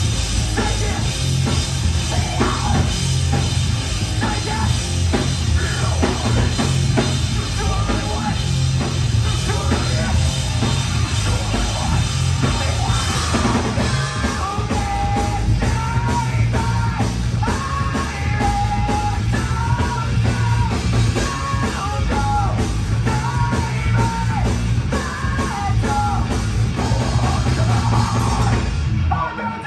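Live rock band playing loud and full: electric guitar, bass guitar and drum kit with heavy bass, and a vocalist yelling and singing into a microphone. The sung melody comes through clearly from about halfway through.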